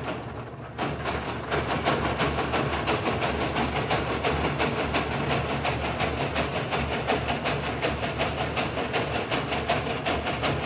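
Wardwell B10-64 wire harness braiding machine running, its 64 carriers travelling round: a steady mechanical hum with a fast, even clatter of clicks. It gets louder about a second in.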